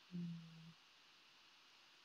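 A short, steady-pitched "mm" hum from a person's voice lasting about half a second near the start, then near silence.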